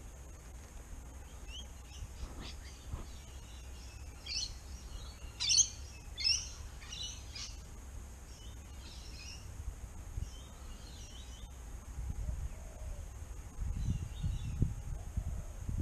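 Birds calling in a short run of quick chirps a few seconds in, over a steady high insect drone. A low rumble builds near the end.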